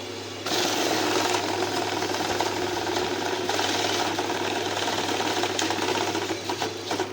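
Banknote counting machine running, its motor humming under a rapid flutter of notes being fed through. It pauses briefly just after the start, resumes, and stops at the end.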